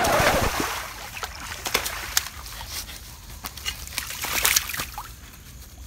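Loud splash as a man and his bicycle fall into a shallow muddy water ditch. It is followed by smaller irregular splashes and sloshing, with sharp knocks, until near the end.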